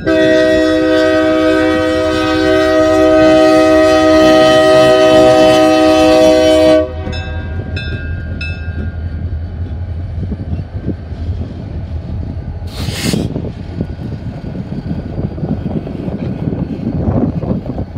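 Lead diesel locomotive's multi-chime air horn sounding one long blast of about seven seconds that cuts off suddenly. The locomotives' diesel engines then rumble steadily as they pass at the grade crossing.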